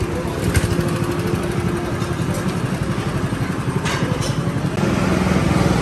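Small engines of amusement-park go-karts idling and running with a steady, rapid putter.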